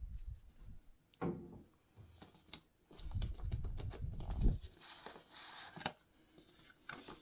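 Small white cardboard product box handled and turned over in the hands: scattered taps and clicks on the cardboard, a run of dull bumps near the middle, then cardboard rubbing and sliding.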